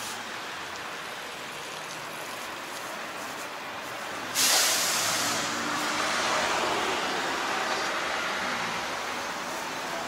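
Road traffic running steadily. About four seconds in comes a sudden loud hiss, fading over about a second, followed by a passing vehicle's rumble that slowly dies away.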